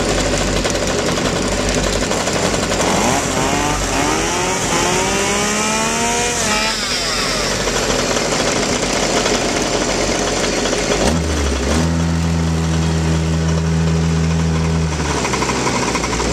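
Small two-stroke Go-ped scooter engines: one revs up for a few seconds with its pitch climbing, then drops back off the throttle. Later a steady, low-pitched idle sets in for about four seconds.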